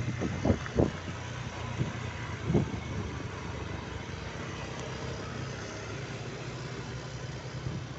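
Bus engine running steadily, with a few dull low thumps in the first three seconds.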